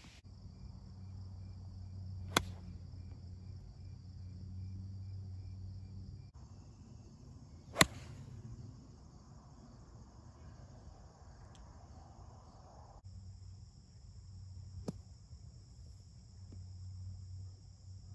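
Golf club striking a ball off the tee: three sharp cracks, about two, eight and fifteen seconds in, the middle one the loudest and the last fainter. Crickets chirr steadily behind them.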